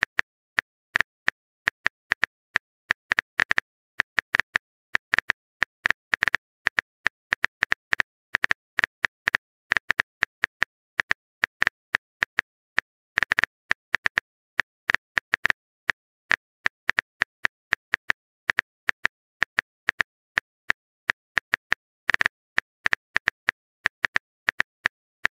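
Phone keyboard typing clicks: short, identical key taps coming several a second in uneven bursts.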